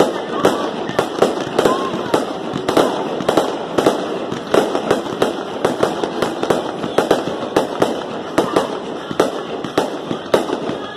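Fireworks display: aerial shells and bursts going off in rapid succession, a dense barrage of sharp bangs and pops, about three a second, without let-up.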